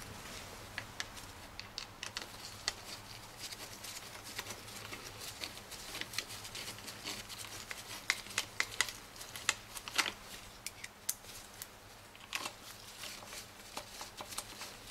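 Small irregular metal clicks and taps of hand tools on the transmission case as the gear selector switch's two screws are fitted and tightened with a 10 mm socket, including short runs of quick clicks.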